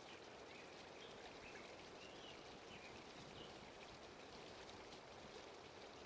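Near silence: a faint, steady background hiss, room tone.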